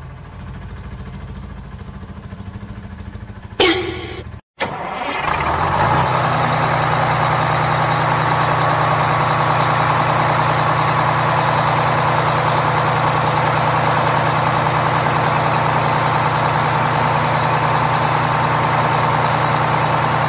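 A truck engine sound effect idling steadily, coming in loud about five seconds in after a brief dropout. Before it, a quieter low engine drone and a short sound gliding down in pitch.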